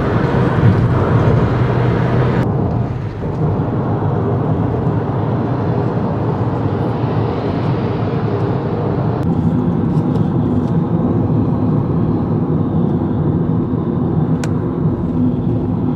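Steady road and tyre noise from inside a moving car's cabin. Its tone changes abruptly about two and a half and nine seconds in.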